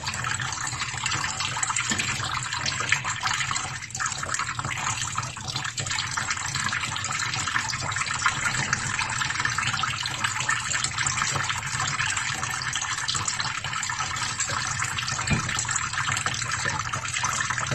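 Tap water pouring into a shallow metal pan in a sink, with a bathing conure beating its wings under the stream and splashing the water in a steady crackle of small splashes.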